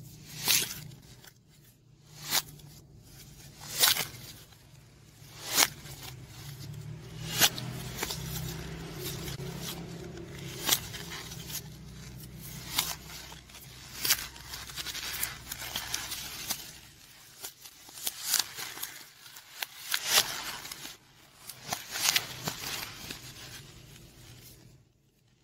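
White polystyrene foam snapped and crumpled by hand: a sharp crack every one and a half to two seconds, with rustling and crunching in between.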